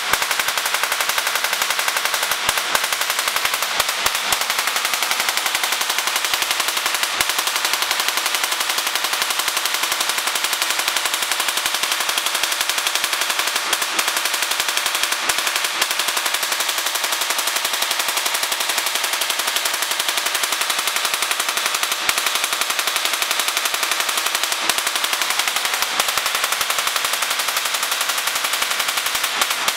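Rotary spark gap Tesla coil of about 100 W running: a steady, very rapid crackling buzz of sparks firing in the gap and discharging from the top load.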